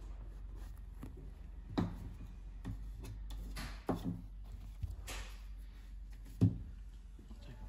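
Faint handling sounds: three soft knocks and a couple of brief brushing sounds over a steady low hum.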